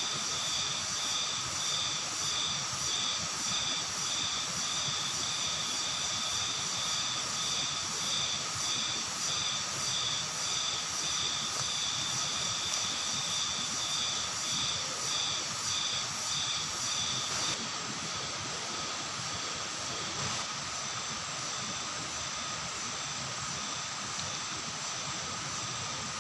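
Forest insect chorus, cicadas and crickets, keeping up several steady high shrilling tones. One pulsing call, about one and a half beats a second, drops out about two-thirds of the way through while the rest continues.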